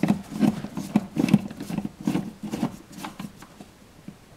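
Screwdriver turning a wall-plate screw: a run of short clicks and scrapes, about three a second, that dies away about three seconds in.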